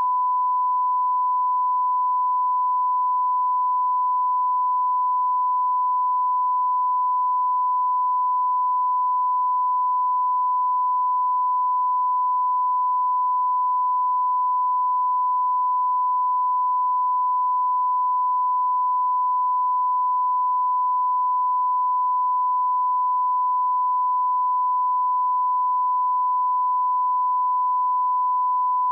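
Broadcast line-up test tone: one steady, unbroken pure tone at 1 kHz at constant level, the reference tone that runs with colour bars.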